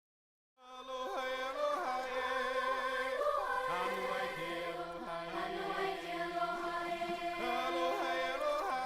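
Silence, then choral music starts about half a second in: several voices holding long, sustained notes with a slight waver.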